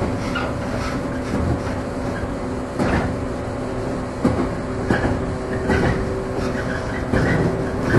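JR 115-series electric multiple unit heard from inside its motor car KuMoHa 115-320 while running: a steady rumble with the hum of its MT54 traction motors and gearing. The wheels click over rail joints several times at uneven spacing.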